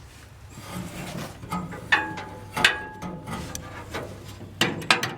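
Bolts being tightened with hand tools to mount a truck box to the frame: a few sharp metallic clanks and clicks, two of them ringing briefly, then a quick cluster near the end.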